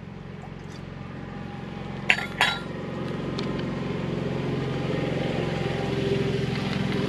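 Two sharp clinks of camping cookware about two seconds in, over a steady motor-vehicle engine hum that grows gradually louder, like a vehicle drawing near.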